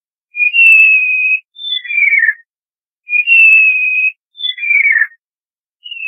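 Black kite calling: a shrill whistle held for about a second, then a shorter falling note, given twice, with a third call beginning near the end.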